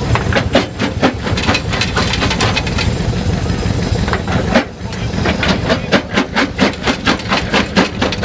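Jaw stone crusher crushing stones: rapid sharp cracks, about three or four a second, over a steady low rumble, with a brief lull a little past halfway through.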